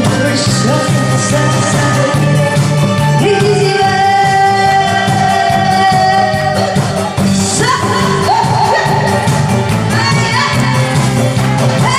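A woman singing through a handheld microphone over an amplified backing track with a steady beat. She holds long notes through the middle, then jumps to a higher note about seven and a half seconds in.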